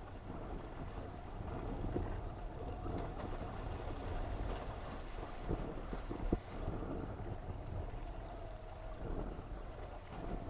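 Wind buffeting the microphone and water rushing past an RS600FF foiling dinghy sailing at about 13 knots, with a steady faint whine underneath and a few light knocks.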